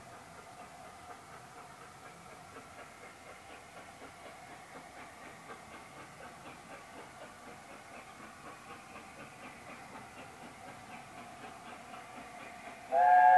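A distant steam locomotive standing in the station, letting off steam in a faint, steady hiss with a ringing tone. Near the end a loud, multi-note steam whistle sounds.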